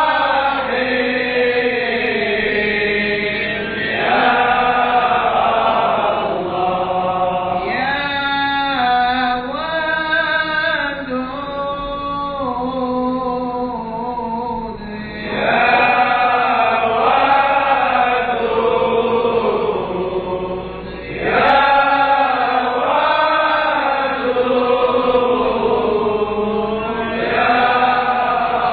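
A man's voice chanting a Sufi devotional dhikr into a microphone. It moves in long melodic phrases of held notes that step up and down in pitch, with short breaths between the phrases.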